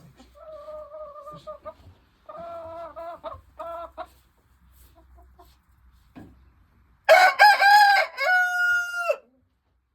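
Rooster crowing. Fainter pitched calls come in the first four seconds, then one loud full crow about seven seconds in, ending on a long held note that drops at the end.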